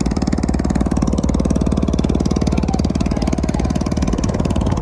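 Engine of a wooden river boat running steadily at a constant pace, an even, rapid pulsing with a steady low hum under it.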